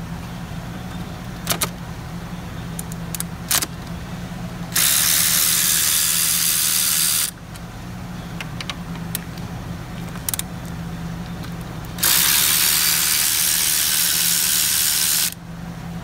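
Two long, steady hisses of spray in the engine bay, one about two and a half seconds long and one about three seconds later on, over a steady low hum. A few sharp clicks of tools against the engine come before them.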